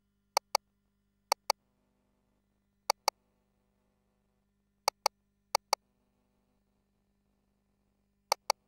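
Short, sharp electronic clicks in quick pairs, six pairs in all, from an ultrasound scanner's console keys as measurement calipers are set; near silence between them.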